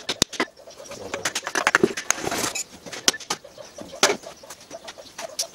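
Wooden plank knocking and clattering against a small metal bench vise and the steel workbench top: a quick run of sharp knocks at the start, a busier clatter a second or two in, then single knocks.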